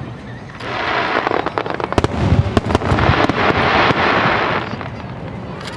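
Starmine fireworks barrage: many shells bursting in quick succession with sharp bangs, low booms and a dense crackle. It builds about half a second in, is loudest in the middle and eases off near the end.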